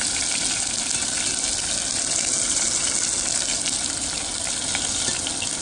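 Karaage-coated rainbow trout pieces deep-frying in oil at about 150 °C: a steady, dense sizzle with a few faint pops.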